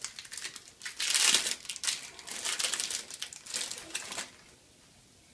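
Plastic wrapping crinkling and rustling as a close-up filter is unwrapped by hand, loudest about a second in, stopping after about four seconds.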